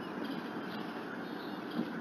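Steady outdoor background hiss picked up by a bald eagle nest camera's microphone, with one brief knock near the end.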